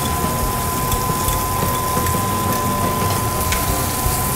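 Onion rings, raw bacon and chestnut pieces sizzling in butter in a stainless steel pan, with a few light clicks of tongs against the pan as they are stirred. A steady high-pitched tone runs underneath.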